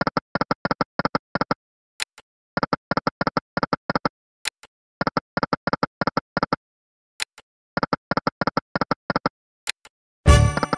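Video slot game sound effects: four times over, a rapid run of short electronic ticks plays as the reels spin and stop, with a single click between runs as the next spin starts. A brief louder burst of game sound comes near the end.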